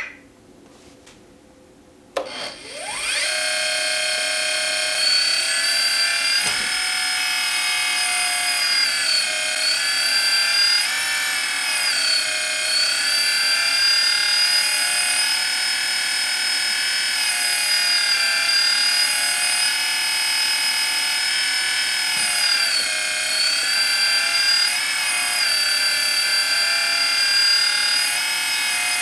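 The electric hydraulic pump of a 1/14 Kabolite K350 RC excavator starts about two seconds in with a rising whine. It then runs with a steady high whine whose pitch dips now and then as the boom and bucket are worked.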